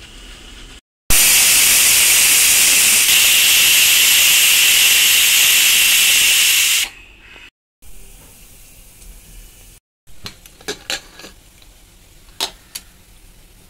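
Pressure cooker letting off steam through its weighted whistle valve: a loud, steady, shrill hiss that starts abruptly about a second in and cuts off after about six seconds, the sign that the cooker has reached full pressure. A few short metallic clinks follow near the end.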